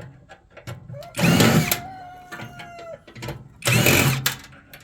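Two loud metal knocks on a scrap microwave's sheet-metal housing, about two and a half seconds apart. The first leaves a ringing tone that dies away after about a second and a half.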